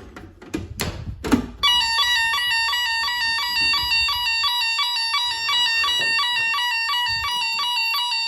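A few clicks and knocks of the alarm panel being handled, then about a second and a half in an electronic alarm sounder starts: a loud, steady warble of two close, shrill tones alternating rapidly.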